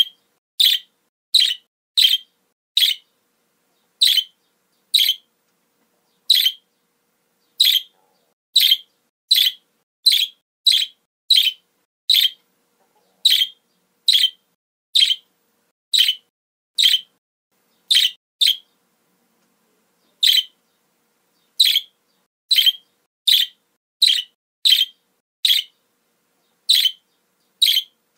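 Budgerigar calling: short, sharp, high chirps repeated about once a second, with a pause of a couple of seconds a little past halfway.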